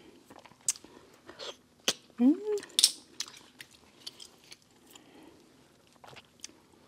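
Close-miked eating of boiled shellfish: sharp clicks and crackles of mussel and clam shells being handled and pried apart, with wet chewing, and a short rising-and-falling "mm" hum about two seconds in.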